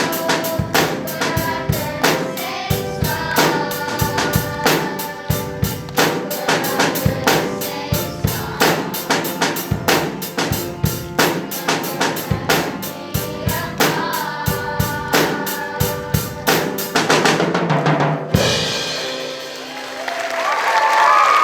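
A song with a steady drum-kit beat and singing, which stops about eighteen seconds in; applause and cheering then swell up near the end.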